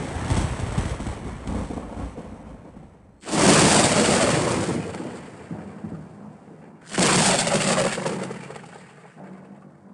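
Sound-effect thunder: a rumble dying away, then two sudden loud thunderclaps about three and a half seconds apart, each crashing and then rolling off over a few seconds.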